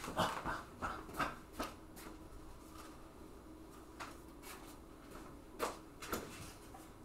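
Faint room tone with a few scattered soft clicks and knocks, several in the first two seconds and a couple more near the end.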